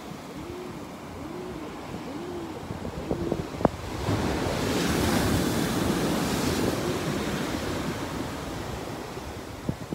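Ocean surf washing onto a sandy beach, with wind buffeting the microphone. About four seconds in, a wave breaks and hisses up the sand, then slowly fades.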